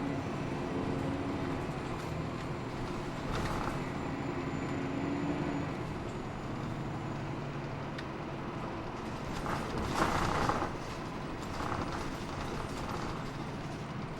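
Hino Blue Ribbon II city bus running, heard from inside the cabin: a steady diesel engine and road rumble with small creaks and rattles from the body. A held engine or drivetrain whine fades out about six seconds in, and a brief louder burst of noise comes about ten seconds in.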